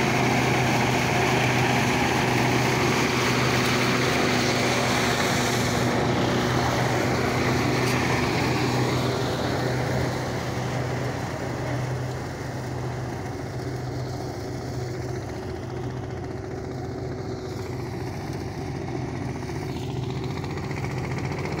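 Diesel engine of a DK Champion 165DI mini tractor running steadily under load, driving a thresher through its PTO, with the thresher's dense whirring noise over the engine hum. The sound grows fainter and duller about ten seconds in.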